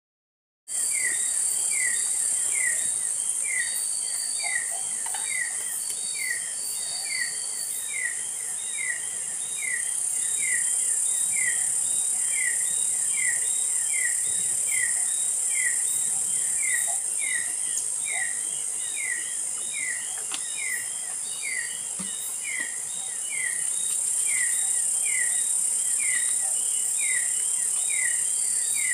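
Forest insect chorus: a steady high-pitched buzz of insects, with a short falling chirp repeating about once a second. It starts abruptly just after the beginning.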